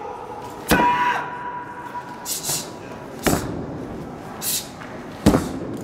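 Taekwondo competitor performing a form: a sharp shout (kihap) about a second in, then the swish and snap of the uniform with quick strikes, with two more sharp cracks later on, spaced about two seconds apart.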